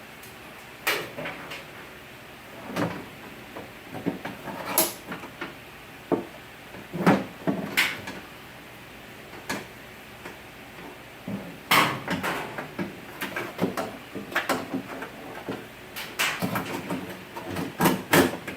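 Irregular knocks, clunks and scrapes of a new window regulator and motor assembly being handled and worked into the car's door, in scattered bunches with short quiet gaps between.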